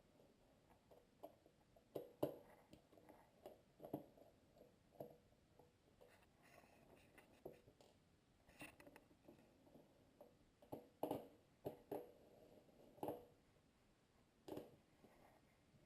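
Faint, irregular small clicks and taps of a tiny Phillips 000 screwdriver working the bottom-case screws out of a white 2010 MacBook.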